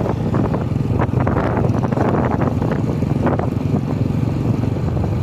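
Engine of a moving road vehicle, heard from on board as a steady low rumble, with wind buffeting the microphone in gusts.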